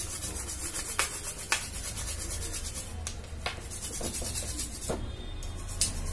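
A small brush scrubbing a liquid-wetted circuit board, a steady scratchy rubbing to clean leftover residue off the freshly soldered joints, with a few sharp clicks along the way.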